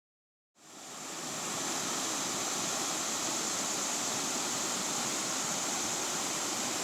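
Steady rushing of a large spring's outflow water, fading in after a brief silence at the start.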